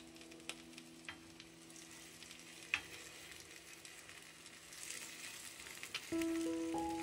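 Bread soaked in egg and milk sizzling in butter in a frying pan, with scattered clicks of tongs against the pan as the pieces are turned, one sharper tap about three seconds in.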